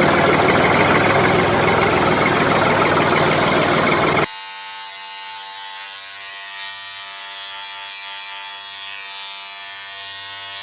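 Small electric motor buzzing loudly, cut off abruptly about four seconds in and followed by a quieter, steady hum made of several fixed tones.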